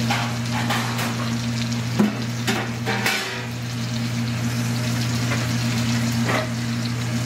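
Bone-in ribeye searing in hot fat in an aluminium frying pan: a steady sizzle with scattered crackles, and one sharp knock about two seconds in. A steady low hum runs underneath.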